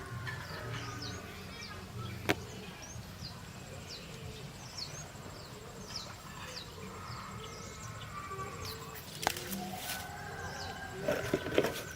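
Small birds chirping, a run of short, high, falling chirps one after another, with a sharp click about two seconds in, another about nine seconds in, and a quick clatter of knocks near the end.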